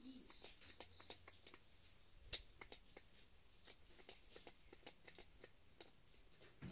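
Faint, scattered clicks and taps of pipe fittings being handled by hand, with one sharper knock about two seconds in.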